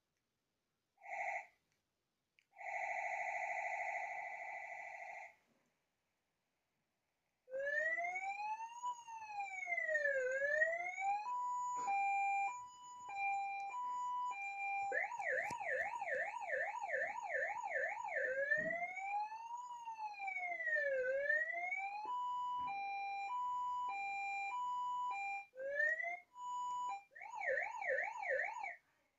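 Electronic emergency-vehicle siren switched between its tones by remote control: a short beep and a steady tone, then a slow rising-and-falling wail, a hi-lo two-note alternation and a fast yelp, changing patterns every few seconds. It stops just before the end.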